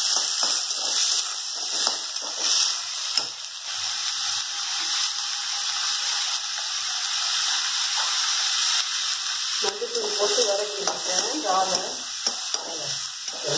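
Chopped onions sizzling in hot oil in a metal kadai, with a steel ladle scraping and knocking against the pan as they are stirred. A voice is heard near the end.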